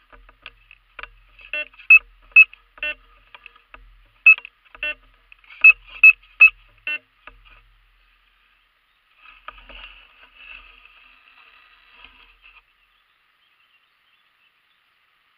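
Metal detector giving a run of short, high beeps in quick, uneven succession. Then, about nine seconds in, a softer rustling noise lasting a few seconds.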